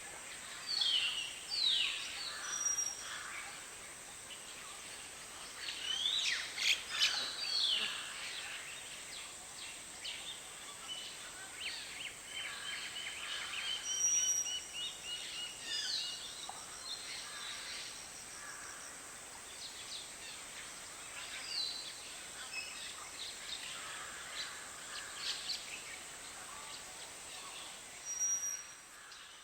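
Many birds calling and chirping at a watering hole over a steady background hiss: overlapping short chirps and sweeping whistles, a busy flurry a few seconds in, and a rapid trill of repeated notes around the middle.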